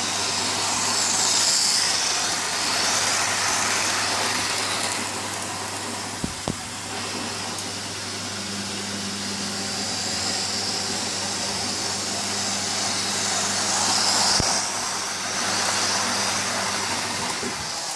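Lima model HST InterCity 125 train running on sectional track: the steady whirr of its motor and the rumble of its wheels on the rails, getting louder twice as it passes close by, with a couple of sharp clicks along the way.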